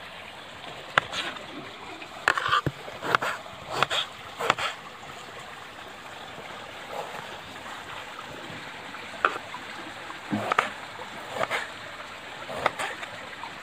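Kitchen knife chopping tomatoes on a wooden cutting board: irregular sharp knocks, several in the first few seconds, a lull in the middle, then more from about nine seconds in. A steady rush of running water continues underneath.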